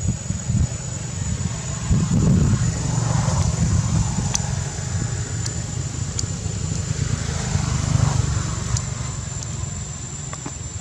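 Motor vehicle engine running nearby, a low rumble that swells louder about two seconds in and again about eight seconds in.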